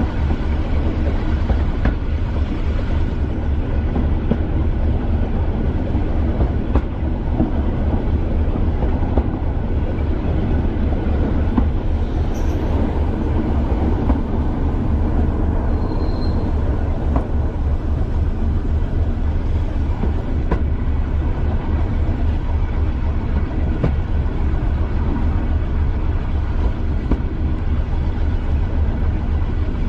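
Class 205 'Thumper' diesel-electric multiple unit's English Electric four-cylinder diesel engine running with a steady, rapid low throb, over the train's steady running noise.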